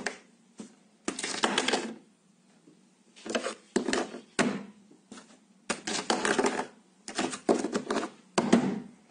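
A string of about ten short scraping, rustling noises, each under a second and spaced irregularly, as an object is moved and rubbed against a wooden tabletop.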